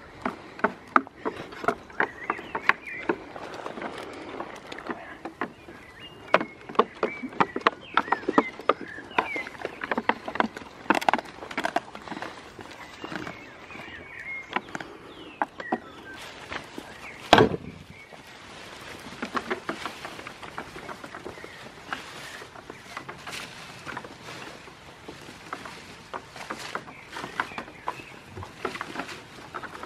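Goat hooves clattering on loose wooden pallets: an irregular string of sharp wooden knocks, with one much louder knock about 17 seconds in.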